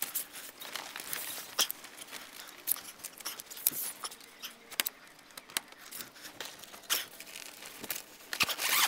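Fabric tent panel being unzipped and pulled out: irregular short zip rasps and clicks with fabric rustling, the rustling louder near the end.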